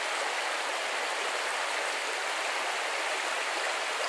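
Small forest brook rushing over rocks: a steady, even rush of running water.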